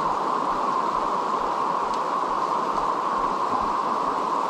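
Steady rush of a fast river running high and swollen after heavy rain.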